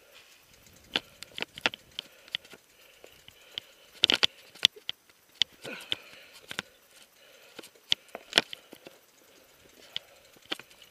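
Mountain bike riding over a rough dirt trail, heard from a helmet-mounted camera: irregular sharp clicks, knocks and rattles as the bike and camera jolt over bumps, with a cluster of louder knocks about four seconds in and again about eight seconds in.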